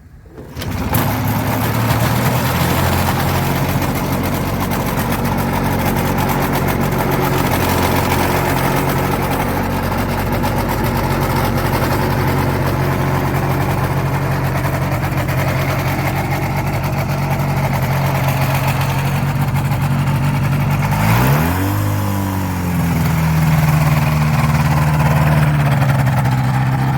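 Motorised hang glider's engine and propeller running at a steady high speed. About 21 seconds in the revs drop sharply and climb back again, then run a little louder.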